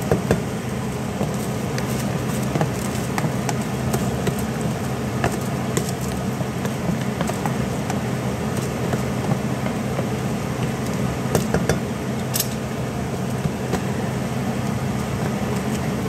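Steady low hum of a fan or motor, with light scattered ticks and scrapes as dry rice grains are poured and scraped from a plastic container into a steel pot with a wooden spatula, and a sharper knock about three quarters of the way through.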